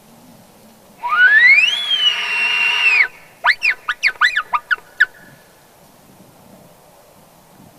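Elk bugle blown on a hunter's bull call: a whistle that rises steeply and holds for about a second before cutting off, then a quick run of short up-and-down squeals. It imitates a bull elk's challenge to draw a bull back out.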